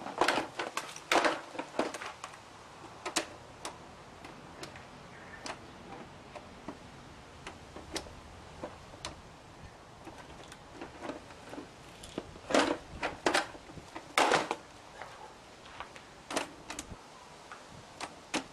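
Irregular sharp clicks and knocks of hard parts being handled, with no motor running. The heaviest knocks come about a second in and again near two-thirds of the way through.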